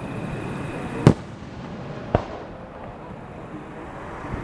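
Two firework shells bursting high overhead, a sharp bang about a second in and a second slightly quieter one about a second later.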